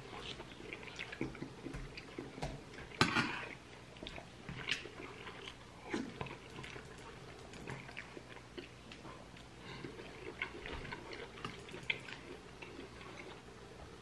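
A man chewing and biting pork rib meat close to the microphone, with scattered small clicks and smacks and one louder short noise about three seconds in.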